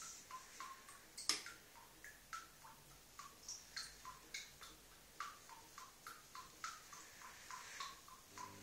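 Beko SMW 3508 TGK washing machine on a delicates cycle, paused between drum turns with the motor stopped. Light, irregular ticks come from the wet drum, about three a second. The motor starts again at the very end.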